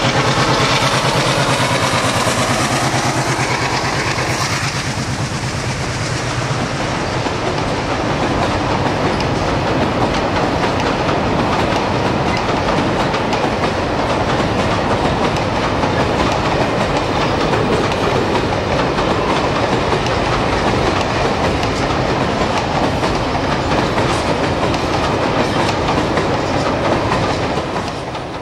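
Freight wagons rolling across a steel trestle viaduct: a steady rumble and clatter of wheels on the bridge. In the first few seconds the MLW MX636 diesel locomotive's engine is still heard, fading as it pulls away.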